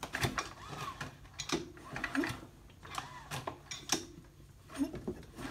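Recoil starter cord of a Briggs & Stratton 175cc engine pulled several times with the spark plug wire off: the cord rasps and the engine turns over without firing, working the pressure washer pump's three pistons in and out.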